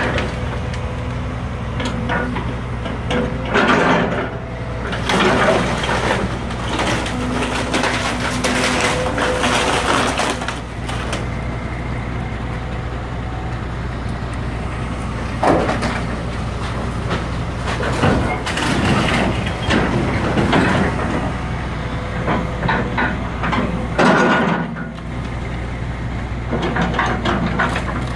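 Volvo excavator's diesel engine running steadily while its bucket crunches through and drops splintered wooden house debris, with repeated bursts of cracking and crashing wood.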